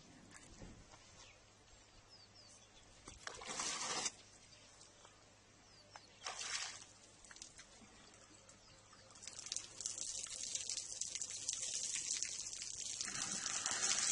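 Water splashing and pouring as an African elephant drinks from a swimming pool with its trunk: two short splashy bursts, then a steadier hissing splash from about nine seconds in that grows louder near the end.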